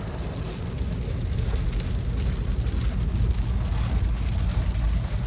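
Car engine and road noise heard from inside the cabin: a steady low rumble with a light hiss over it.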